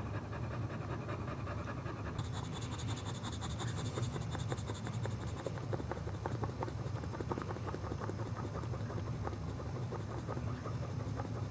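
Pregnant Boxer bitch panting steadily in a run of quick, even breaths while in labor.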